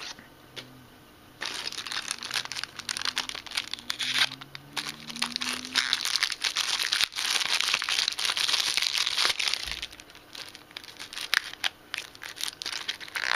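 Clear plastic wrapping crinkling and tearing as a small cardboard package is unwrapped by hand. It starts about a second and a half in and goes on in a busy run of crackles, easing off briefly near ten seconds.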